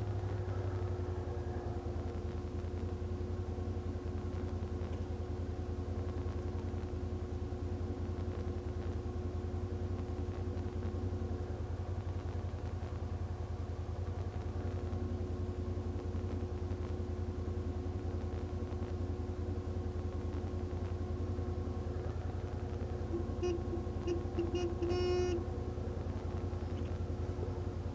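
ATV engine running steadily with a low, even drone. Near the end a horn sounds in several short toots, then one longer blast.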